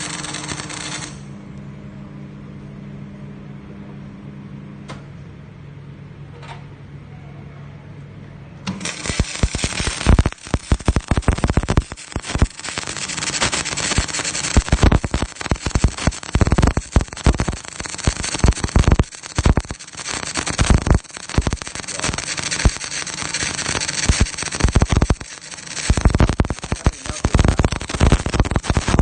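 Dyna Auto XC500 MIG welder humming steadily at idle, then from about nine seconds in the welding arc crackles and sputters in a rapid, irregular stream, with a few brief breaks.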